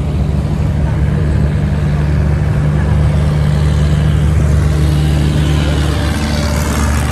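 Speedboat's outboard engine running steadily under way, a low, even drone with the rush of wind and water over it.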